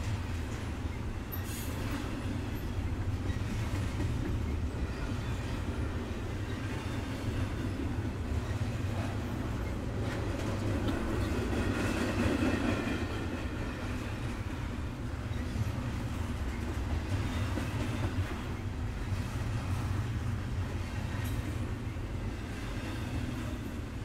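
Double-stack container freight train rolling past at speed: a steady rumble and rush of wheels on rail, with a faint high wheel squeal around the middle.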